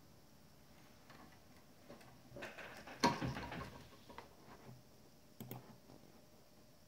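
Handling noise from the camera being moved: faint clicks and rustling, with one sharp knock about three seconds in and two small clicks near the end.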